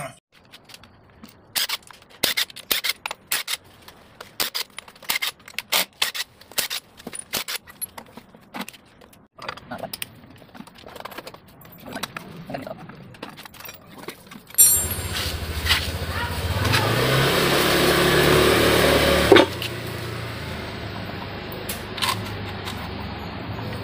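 Irregular sharp metal clicks and clatter of hand tools on the bolts of a Honda Vario scooter's CVT cover as it is dismantled. About fifteen seconds in, a steady, louder sound starts suddenly, swells for a few seconds, then drops back and carries on more quietly.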